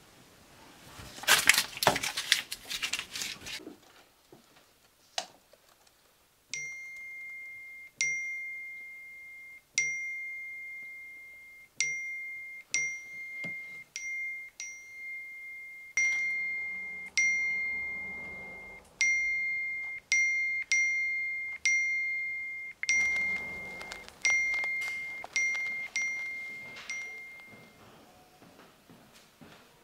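A smartphone's message notification chime sounding over and over, about twenty identical dings that come faster and faster as messages pour in. A loud noisy burst comes before them in the first few seconds.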